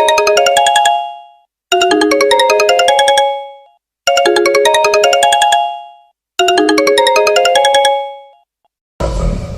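Smartphone ringtone: a short electronic melody of quick notes, played four times with a brief gap between repeats. Near the end a different ringtone begins.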